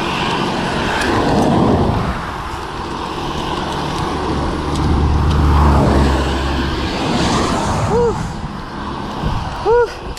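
Motor vehicles passing on a hill road, one with a deep engine hum that swells loudest about halfway through, over steady road and wind noise. Two short tones that rise and fall come near the end.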